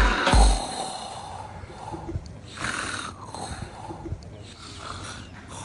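A man snoring, several long snores one after another. Two deep thumps at the very start are the last of the remix's beat.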